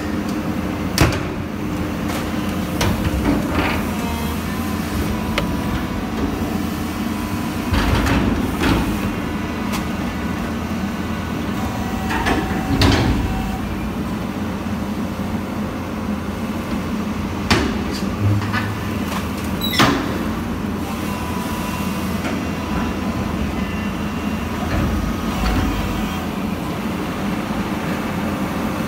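Excavator engine and hydraulics running steadily while a hydraulic demolition shear bites into and tears the steel tank of a scrap tanker truck. A handful of sharp metallic bangs and creaks of the sheet steel giving way come through the drone.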